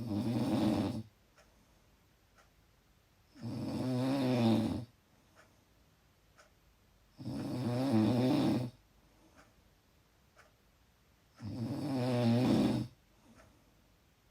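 Loud snoring from a sleeper: four long snores, each over a second, coming about every four seconds with quiet breathing between them.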